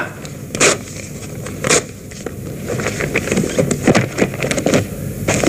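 Glossy photographs being handled and shuffled on a desk: two sharp slaps of card in the first two seconds, then a run of quick rustles and flicks as the prints are leafed through.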